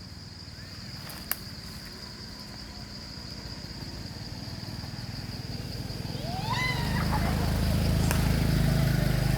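A steady high-pitched insect drone runs throughout. About two-thirds of the way in, a low motor rumble swells and becomes the loudest sound. Just as it starts, a short run of rising calls is heard, along with a single sharp click earlier on.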